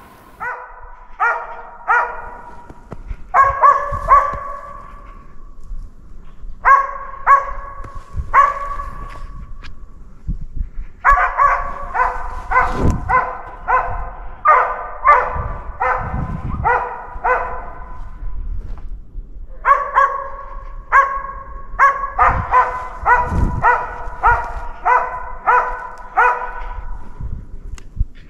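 Hunting laika barking in bouts of rapid, evenly spaced barks, two to three a second, with short pauses between bouts: the steady baying a laika gives at a capercaillie it has treed.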